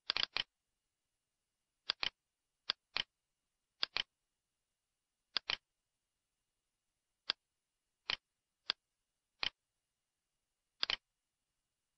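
Computer mouse button clicking: single clicks and quick double clicks, irregularly spaced about a second apart, with silence between.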